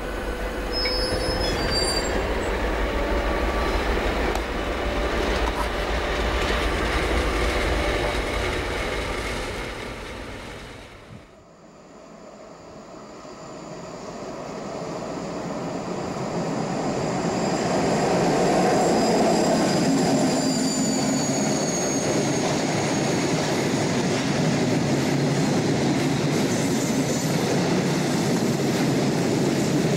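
Brawa H0-scale class 232 'Ludmilla' model diesel locomotive's sound decoder playing diesel engine sound through the model's small speaker. The sound drops away for a moment about a third of the way in, then builds again as a model freight train comes closer and its wagons roll past on the track.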